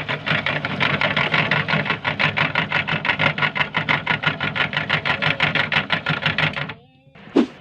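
Meat grinder running steadily with an even rapid pulse, about seven beats a second, as it grinds colourful soft marbles. It stops abruptly near the end, followed by a short sharp sound.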